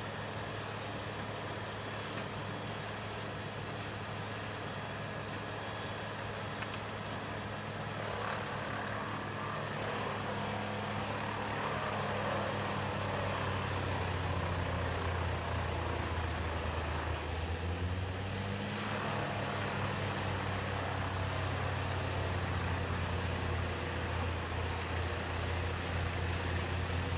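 Large diesel engine of a heavy machine running steadily. About eight seconds in, a louder rushing, grinding noise joins it and the level rises. Around seventeen seconds the engine note dips briefly, as an engine does when it takes on load.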